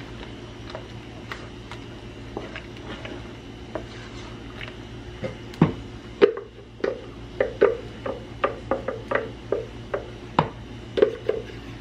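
Faint clicks and scraping of a spoon stirring thick chowder in a pan, then, from about five seconds in, a run of sharp knocks, about two a second, as a wooden spatula scrapes and taps blended cashew cream out of a plastic blender jar into the pan.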